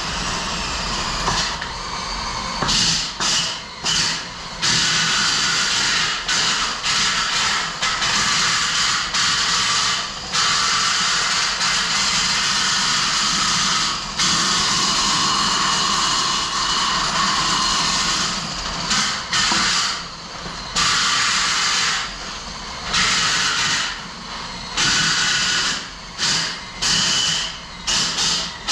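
RIGID PowerSpin Plus drain auger spinning its cable inside a steel frame rail, scraping and rattling loose rust and scale off the inside walls. The noise stops and starts many times in quick spells as the drill is let off and run again.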